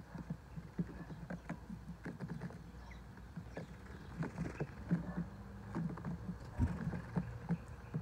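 Light, irregular tapping and clicking from house sparrows pecking at food on a plate and hopping about on the table, several taps a second, over a steady low rumble.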